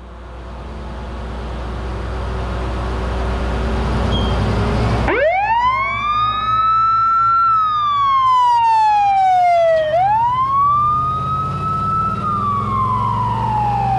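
1995 Ford F-Super Duty brush truck pulling out with its engine running as a low rumble. About five seconds in its siren starts wailing: the pitch rises quickly, holds, then slides down slowly, and this happens twice.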